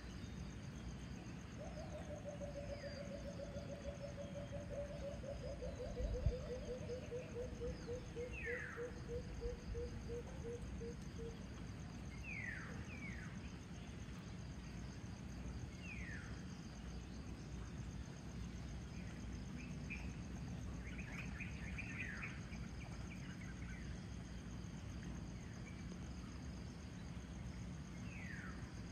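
Dawn chorus over a steady low rumble: insects keep up a constant high trill, and birds give short downward-sweeping calls every few seconds, with a quick burst of chirps about two-thirds of the way through. About two seconds in, a long run of low hooting notes slowly falls in pitch and slows over some ten seconds. A single low thump comes about six seconds in.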